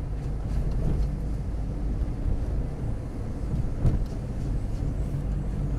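Steady low rumble of a car driving along a wet road, with one short bump about four seconds in.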